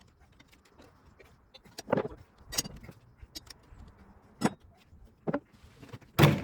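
Scattered knocks and clacks of tire-changing tools against a motorcycle wheel as it is worked on, with a heavier knock near the end.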